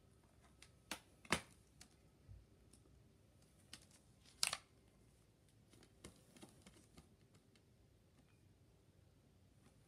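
Scattered faint clicks and taps of a plastic Blu-ray case being handled and opened, with a few sharper snaps; the loudest comes about four and a half seconds in.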